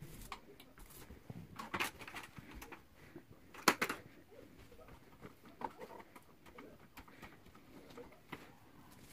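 Paint roller working thinned drywall mud for a rolled-on texture: soft wet rolling with scattered small clicks, and a sharp knock a little under four seconds in as the roller goes down to the tray to be reloaded.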